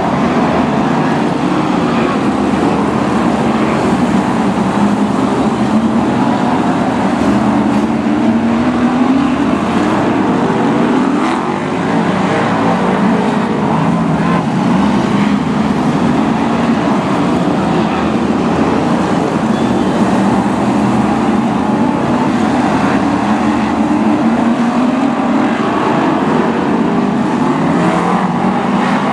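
BriSCA F1 stock cars' V8 racing engines running hard around the oval. The engine note rises and falls continuously as the cars accelerate, lift off and pass one after another.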